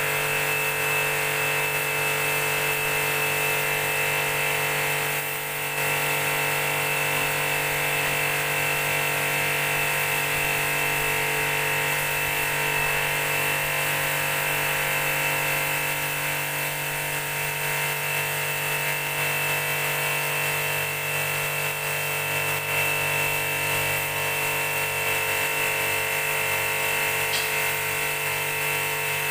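High-pressure sprayer pump running steadily with a constant whine, and the hiss of its fine water jet spraying across a concrete floor.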